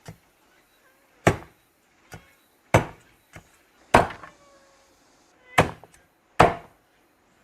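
Heavy cleaver chopping cured pork trotters on a chopping board. There are five loud, hard blows spaced about a second or more apart, with a few lighter knocks between them.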